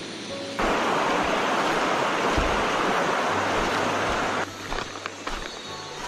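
Shallow stream water rushing over a bed of pebbles and stones, a loud, even rush that cuts in abruptly about half a second in and cuts off just as suddenly near the end.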